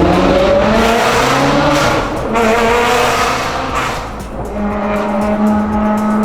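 Ferrari 360 Modena's V8, breathing through a catless Capristo exhaust, accelerating hard: the revs climb, break at a gear change about two seconds in, climb again through another shift, and then settle into a steady note near the end.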